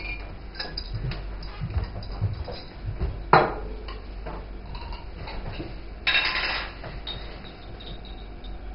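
Kitchen clatter of dishes and utensils: scattered light clinks and knocks, a sharp knock about three seconds in and a brief noisy burst about six seconds in.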